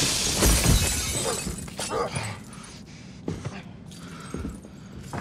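Glass shattering as a man crashes through a pane, with heavy thuds about half a second in and the crash dying away over the next second or so. A few lighter knocks follow later.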